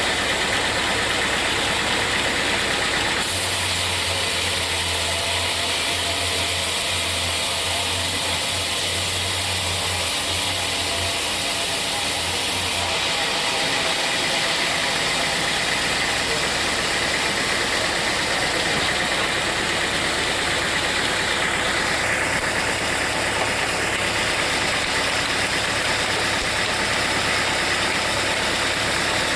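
Sawmill machinery running steadily with an engine-like drone. A low hum and a high hiss come in about three seconds in and drop away around thirteen seconds.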